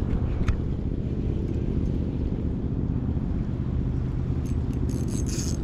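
Wind buffeting the camera's microphone as a steady low rumble, with a few light clicks and a short patch of higher clicking about a second before the end.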